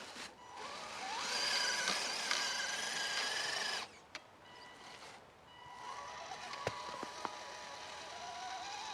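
Electric motor and geared drivetrain of an Axial SCX10 Deadbolt RC crawler whining under throttle as it fights through wet snow. The whine rises in pitch, cuts off for a couple of seconds, then starts again more quietly and climbs near the end, with two sharp clicks in between.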